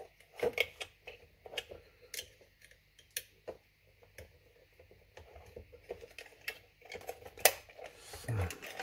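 Scattered light clicks and taps of hands handling a Philips Senseo coffee machine's control circuit board, its wires and the plastic housing during reassembly, with one sharper click near the end.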